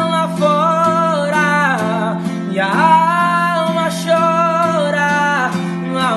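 Music: a man singing long, drawn-out notes over acoustic guitar.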